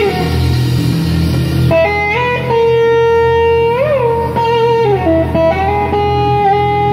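Live rock band playing. An electric guitar leads with long held notes that glide in pitch, bending up and back down near the middle and sliding down about five seconds in, over bass and drums.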